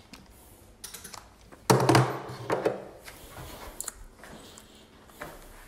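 Light clicks and knocks of TV remote controls being picked up and handled, with a louder thump and rustle about two seconds in.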